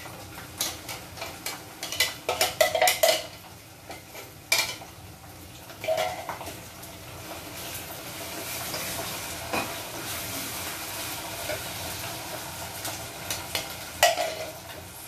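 Boiled, blended green chili paste frying in hot oil in a small saucepan, sizzling steadily through the middle, while a stirring utensil clinks, knocks and scrapes against the pan. The sharp knocks cluster in the first few seconds and come again near the end.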